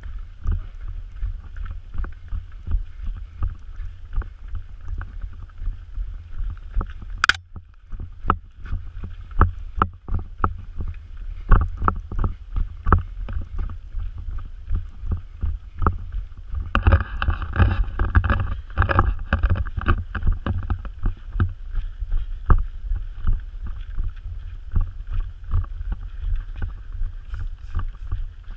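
Rhythmic thuds of a runner's footsteps on a dirt forest trail, jolting a body-worn action camera, over a steady low rumble on the microphone. A sharp click comes about seven seconds in, and a louder rush of noise lasts about three seconds past the middle.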